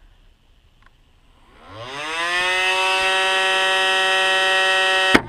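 Dremel rotary tool spinning up with a CD mounted on it: the whine rises in pitch over about a second, then holds at a steady high pitch. A sharp crack comes near the end.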